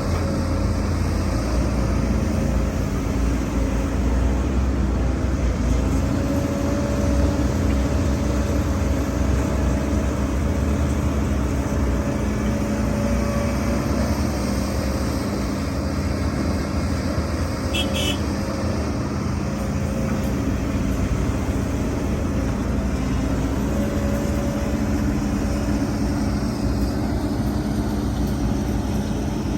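Heavy diesel engine of earthmoving machinery running steadily under working load, its pitch wavering slightly. A brief high chirp sounds about two-thirds of the way through.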